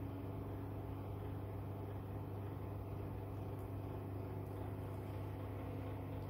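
Steady low mechanical hum of background machinery, unchanging, with a faint thin tone above it.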